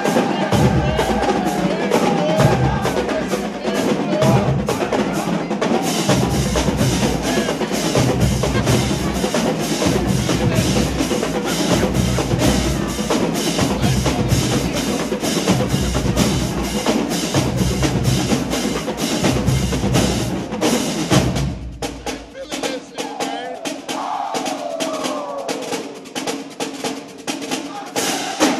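Marching drumline of snare drums, tenor drums and bass drums playing a fast, driving cadence with heavy bass-drum hits. About three-quarters of the way through the bass drums drop out and the playing thins to lighter stick strokes.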